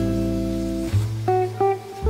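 Background music: plucked acoustic guitar chords over a low bass line, the notes changing a few times.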